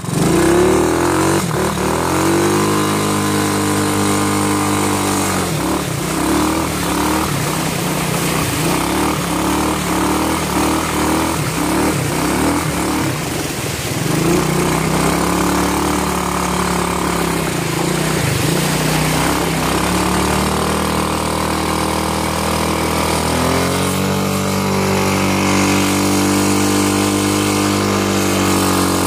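A 125 cc ATV's small engine running under load, its pitch rising and falling as the throttle is worked, with water splashing around the wheels as it drives through a shallow river.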